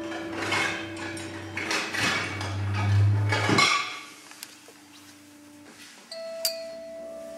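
Electroacoustic music: held tones under swelling washes of noise and a low rumble that builds to about three seconds in, then stops abruptly. A little after six seconds a new held tone enters with a sharp metallic strike.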